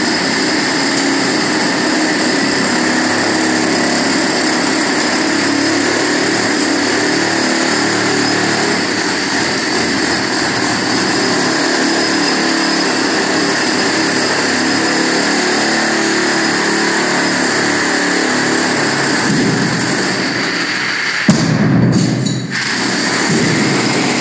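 Electric demolition hammer running continuously as it breaks out a brick wall. About 21 seconds in there is a sharp, loud thud, likely masonry falling, and the tool's sound changes briefly before the steady hammering resumes.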